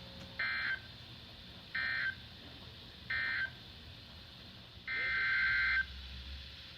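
Emergency Alert System digital data tones: three short raspy bursts a little over a second apart, the end-of-message code closing a warning, then a longer burst of the same warble about five seconds in, the header opening the next alert.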